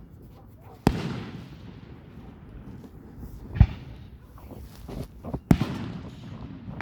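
Fireworks going off: three sharp bangs about a second, three and a half and five and a half seconds in, the first and last trailing off in an echoing rumble.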